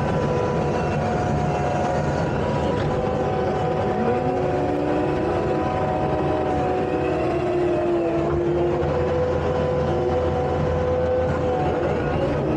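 Takeuchi tracked skid steer running steadily while working: a low engine drone under several whining tones that slide up and down in pitch as the machine is worked.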